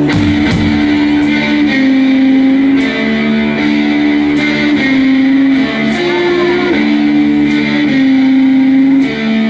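A guitar-and-drums rock duo playing live: electric guitar plays a riff of held notes that change about once a second, over drum and cymbal hits roughly every second.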